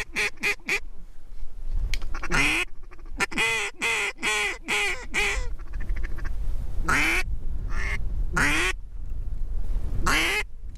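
Duck quacking: a few short quacks, then a run of about eight that falls in pitch, then single quacks near the end. A steady low rumble of strong wind on the microphone runs underneath.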